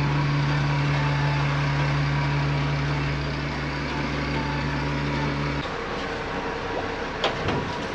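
A fishing boat's engine running steadily under way, a constant low hum heard from inside the wheelhouse. The hum cuts off about five and a half seconds in, leaving a quieter background with one sharp tick near the end.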